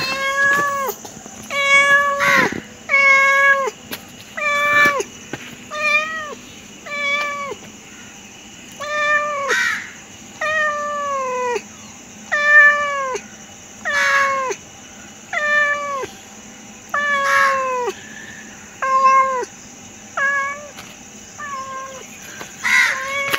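Domestic tabby-and-white cat meowing over and over, about sixteen meows, each dropping in pitch at the end.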